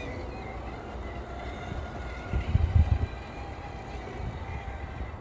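Scale RC rock crawlers crawling over rock, their electric motors and geared drivetrains giving a faint steady whine. Wind buffets the microphone with a low rumble, heaviest about two and a half seconds in.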